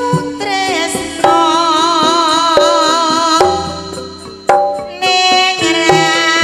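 Live Javanese campursari music: kendang hand-drum strokes under a melody line that wavers with vibrato.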